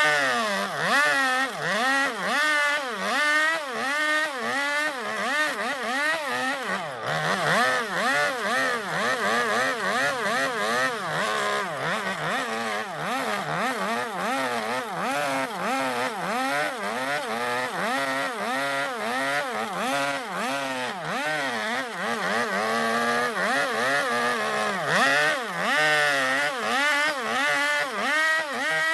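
A two-stroke chainsaw carving into zelkova wood. Its engine revs up and down about twice a second as the bar dips in and out of the cut to hollow out a wooden bowl.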